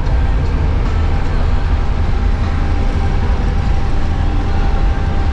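Steady low engine and road rumble heard from inside a moving minibus.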